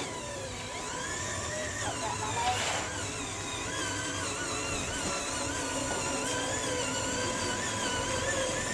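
Small electric motors and plastic gears of a remote-control toy construction vehicle whining, the pitch wavering up and down as it drives, with a brief louder scrape about two and a half seconds in.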